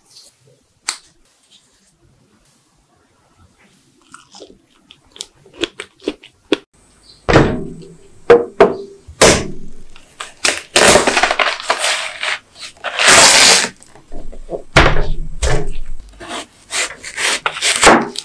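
A chef's knife cutting through a whole watermelon on a wooden cutting board: loud, crisp crunching as the blade splits the rind and flesh, with sharp knocks of the blade against the board. The cutting starts about seven seconds in; before that there are only faint soft handling sounds.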